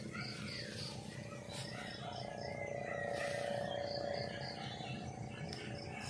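Insects chirping in a grassy field, short high chirps repeating in little groups, over a low steady outdoor background; a steady, louder lower-pitched call or hum swells in about two seconds in and fades out a couple of seconds later.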